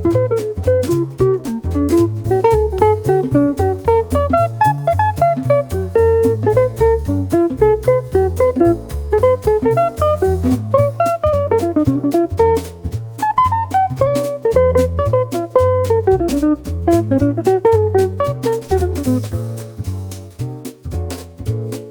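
Background music: an upbeat jazzy tune with plucked guitar melody, bass and drum kit keeping a steady beat.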